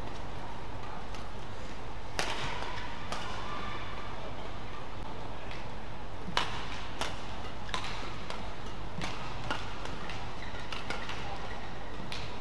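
Badminton rally: a series of sharp racket-on-shuttlecock hits, irregularly spaced, with short high squeaks from shoes on the court, over a steady hall background.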